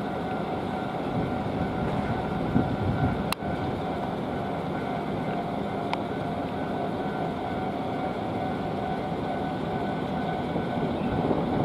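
Electric train running over the level crossing, a steady rolling noise of wheels on rail, with the crossing's warning bell sounding as a faint two-note tone beneath it. One sharp click comes about three seconds in.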